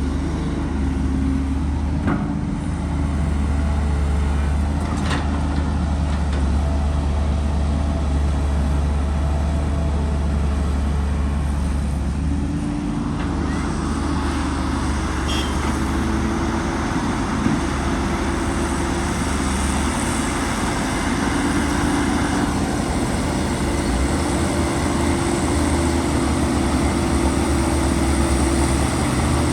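Diesel engine of heavy earthmoving machinery running steadily, its sound growing fuller about halfway through.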